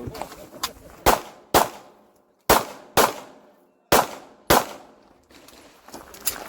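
Glock 26 9mm pistol fired in three quick double-taps, each pair about half a second apart, with roughly a second between pairs, each shot with a short ringing tail.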